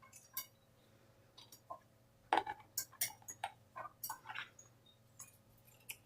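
Cockatiel chewing with its beak: an irregular run of small clicks and crackles, busiest and loudest from about two seconds in.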